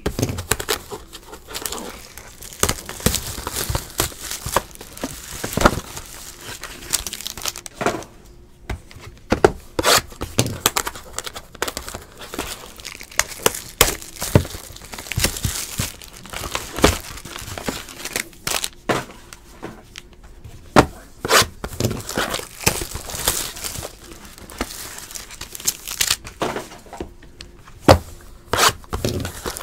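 Foil trading-card pack wrapper and its box packaging crinkling and tearing in quick, irregular bursts as a Topps Tier One baseball box is unwrapped by hand, with cards and cardboard being handled.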